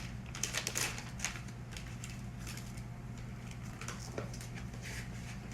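Rustling and light clicks of packaging being handled as a wrapped item is opened. The rustling is busiest in the first second or so and thins out after that, over a steady low hum.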